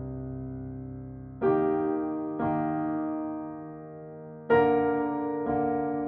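Slow, calm piano music: four sustained chords, about one every second or two, each struck and left to ring and fade.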